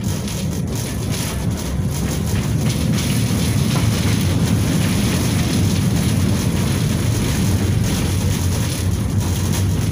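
KTM-5M3 (71-605) tram running along the line, heard from inside the car: a steady rumble of wheels on rails and running gear. It grows a little louder over the first two seconds, then holds.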